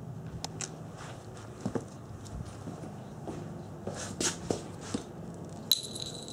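Cats moving about on a blanket and rugs: scattered soft taps and rustles over a low steady hum. Near the end, a sharp click followed by a short high ring.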